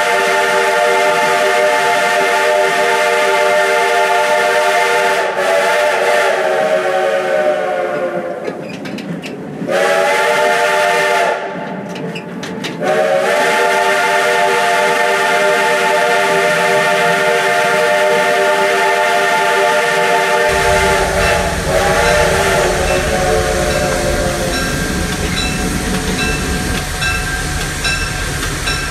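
Steam locomotive's chime whistle blowing several notes at once: a long blast, a short one, then another long blast, each sagging slightly in pitch as it dies away. A low rumble of the running train comes in near the end.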